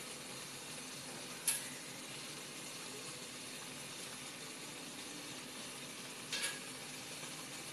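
Steady hiss of steam from a stainless-steel steamer pot of boiling water, with two short clinks, about a second and a half in and again near the end, as foil cups of batter are set down on the perforated steel steamer tray.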